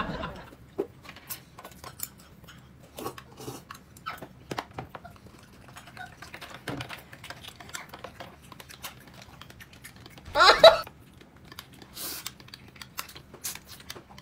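Chopsticks and tableware clicking and tapping irregularly against a bowl during a meal. About ten seconds in there is one short, louder vocal sound.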